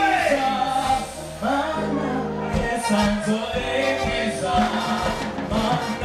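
Gospel music: voices singing together over a band with a steady bass line, and a drum beat coming in about two and a half seconds in.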